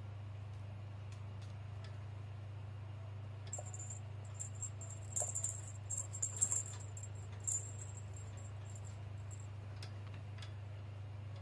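A small metal bell on a cat toy jingling in short, irregular bursts for several seconds, over a steady low hum.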